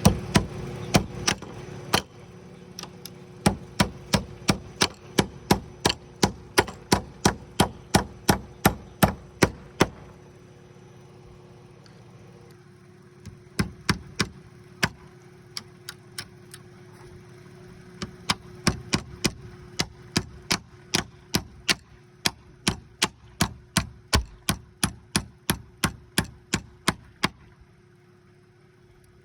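Hammer driving nails into a roof anchor: steady runs of sharp blows, about two to three a second, broken by a few short pauses.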